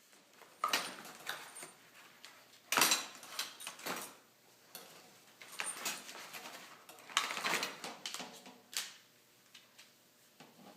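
Metal parts of a sandblasting cabinet kit clattering and rattling as they are handled, in about six separate clatters with short pauses between.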